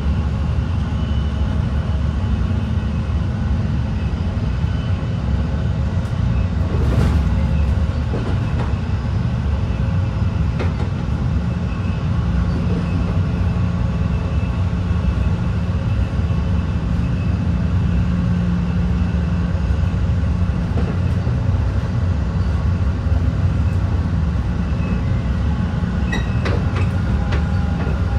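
Metra commuter train under way, heard from inside a passenger car: a steady low rumble of wheels on rail. There is a brief swell of noise about a quarter of the way in and a few sharp rail clicks near the end.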